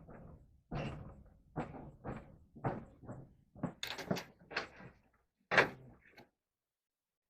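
A series of irregular knocks and clunks, about a dozen, stopping abruptly about six seconds in.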